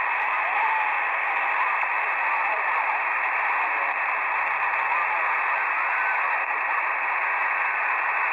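Shortwave receiver static from a software-defined radio tuned to 7090 kHz in lower sideband on the 40-metre amateur band: a steady hiss cut off sharply above and below like a voice channel, with a few faint wavering tones in it now and then.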